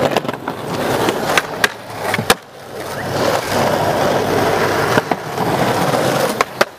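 Skateboard wheels rolling over rough concrete and asphalt, with several sharp clacks of the board popping and landing. The rolling briefly drops out about two and a half seconds in, then picks up again.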